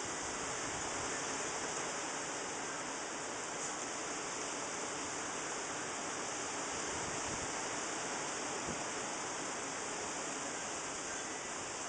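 Steady outdoor background hiss with no distinct sound standing out.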